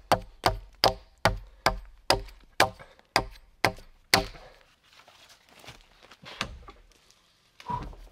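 A machete chopping into a wooden log: about ten sharp strokes at a steady pace, stopping about four seconds in. A few softer knocks and rustles of wood being handled follow.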